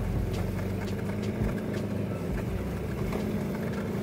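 Car engine humming steadily with road noise, heard from inside the moving car's cabin, with light clicks and rattles every so often.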